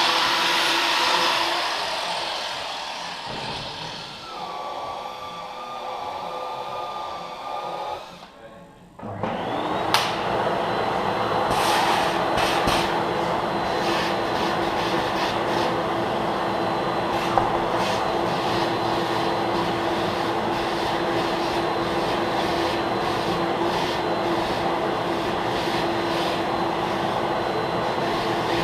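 Pneumatic grinder running with a hiss of air and a steady whine, grinding out a nail puncture hole in a tubeless tire to prepare it for an internal patch. It stops about eight seconds in, then spins up again with a rising whine about a second later and runs steadily, with repeated short scrapes as the bit bites the rubber.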